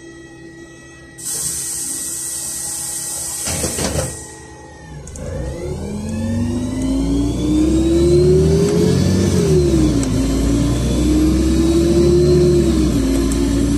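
LiAZ 5292.67 city bus with a YaMZ-53624 gas engine and ZF automatic gearbox: a long hiss of compressed air, then the bus pulling away, its engine and driveline note rising with speed and dropping sharply twice as the automatic gearbox shifts up.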